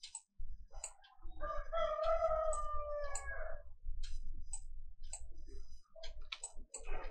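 Computer mouse clicking now and then over a low rumble. A steady pitched call in the background, about two seconds long, starts about a second and a half in.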